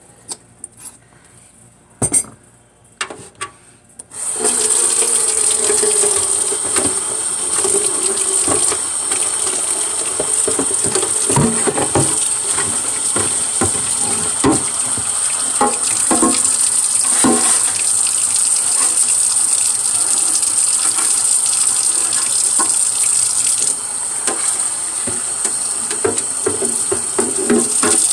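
A few soft clicks and knocks, then about four seconds in a kitchen tap comes on and runs steadily, water pouring into a plastic container in a stainless steel sink, with scattered knocks. It drops a little in level near the end.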